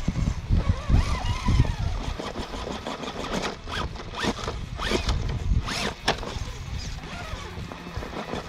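Electric drivetrain of an Axial SCX10 III RC rock crawler whining in short bursts, its pitch rising and falling as the throttle is worked on a rock climb, with sharp scrapes and knocks from the truck on the rock between about three and six seconds in.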